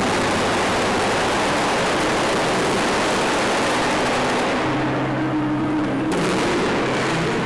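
Fireworks display: a dense, continuous barrage of crackling and popping from aerial shells and fountain effects. The high crackle thins out about two-thirds through, then a sharp new burst hits.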